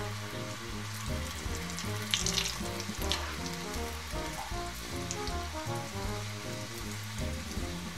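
Stuffed modaks deep-frying in hot oil in a kadhai, a steady bubbling sizzle. A slotted spoon turns them, scraping the pan briefly a couple of times about two and three seconds in.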